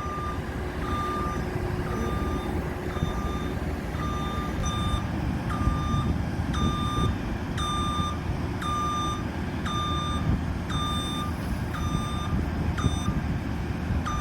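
Reversing alarm on demolition plant beeping about once a second over the low rumble of a diesel engine, the beeps growing louder about a third of the way in.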